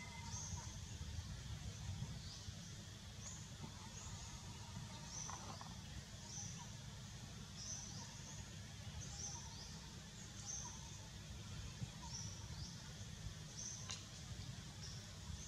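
Forest ambience: a short, high chirp repeats about once a second over a steady low rumble.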